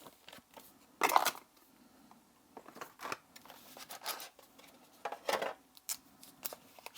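Handling noises from a small plastic wall charger and its packaging being moved about: a run of short scrapes, taps and rustles, the loudest about a second in.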